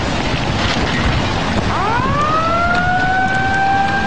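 Steady rush of surging tsunami floodwater mixed with wind on the microphone. About two seconds in, a siren winds up over about a second and then holds a steady tone.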